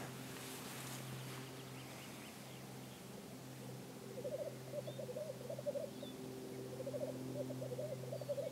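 Male black grouse bubbling (rookooing), its courtship display song at the lek: two runs of rapid low warbling coos, the first starting about four seconds in and the second after a short pause near the end, over a steady low hum.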